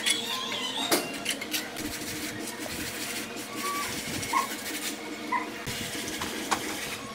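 Steel trowel scraping and tapping as cement mortar is spread and smoothed on a concrete window hood, with sharp clicks, the loudest near the start and about a second in. A few short high chirps sound around the middle over a steady low hum.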